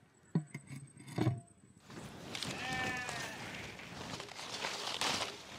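Two dull thumps, then a steady hiss with a goat bleating once, briefly and wavering, over it.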